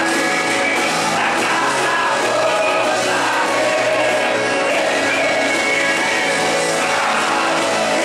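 Live gospel hymn: a male singer sings through a microphone over amplified instrumental accompaniment, with the congregation singing along.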